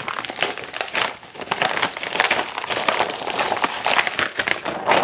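Clear plastic vacuum-sealer bag crinkling and rustling in a run of short crackles as a slab of salted pork belly is slid into it by gloved hands.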